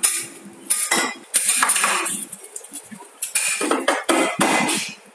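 Metal teppanyaki spatulas clanking and scraping against a steel griddle in uneven bursts with short pauses between them.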